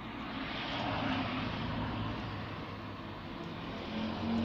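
A motor vehicle's engine running and passing by: a steady hum with a swell of rushing noise about a second in, and a low engine tone growing near the end.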